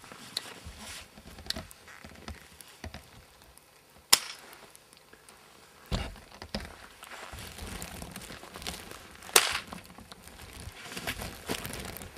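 A few sharp knocks or cracks, the loudest about four and nine seconds in, over faint scattered crunching and rustling of people moving in snow.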